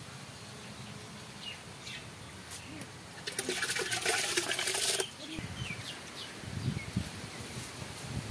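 Rice poured from a steel bowl into a blackened metal cooking pot, a loud rushing pour of about two seconds that starts a few seconds in. Faint bird chirps around it.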